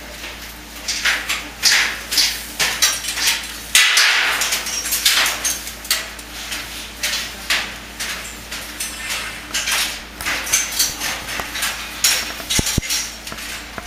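Irregular metallic clanks and hammer taps, a few a second, over a faint steady low hum.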